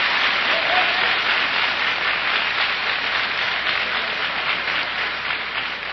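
Congregation applauding after a line of the sermon, the applause dying away near the end.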